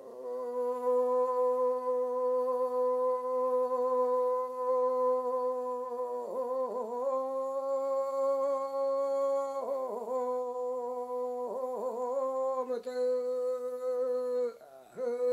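Yami (Tao) fishing song sung solo and unaccompanied in a plain recited style: one voice holds a long, steady note, broken by short wavering turns about six, ten and twelve seconds in, then drops off and gives a brief last note near the end.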